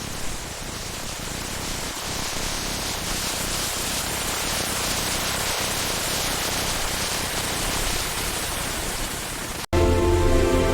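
A steady, even hiss of noise, which cuts off abruptly about a second before the end and gives way to music with sustained notes.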